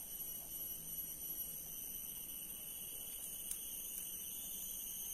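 Steady high-pitched insect chorus, several shrill tones held unbroken, with a single faint click about three and a half seconds in.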